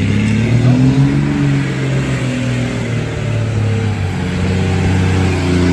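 Second-generation Dodge Cummins 5.9-litre inline-six turbo diesel pulling the pickup forward. Engine pitch rises over the first second or so, eases off, then rises again near the end.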